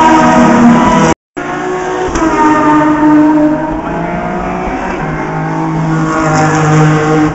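Race car engines at full throttle as several cars pass along the straight, their engine notes overlapping and shifting in pitch. The sound cuts out for a moment about a second in.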